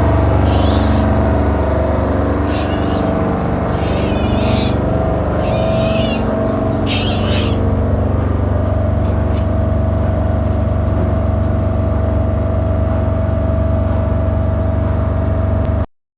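An engine or motor running steadily with a constant hum, joined by several short, wavering high-pitched sounds in the first half. It cuts off suddenly near the end.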